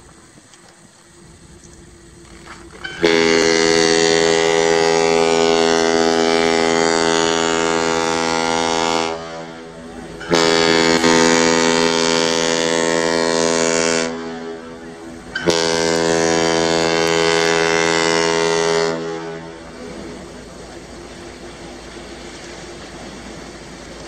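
Ship's horn of the CSL Assiniboine, a Great Lakes self-unloading bulk freighter, sounding three long blasts of one deep, steady note rich in overtones. The first blast lasts about six seconds and the next two about four each. A faint steady hum lies under the quiet stretches.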